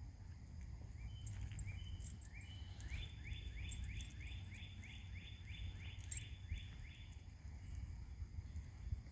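Northern mockingbird singing: a few separate rising whistled notes, then a quick run of about four rising notes a second lasting some four seconds, over a low steady rumble.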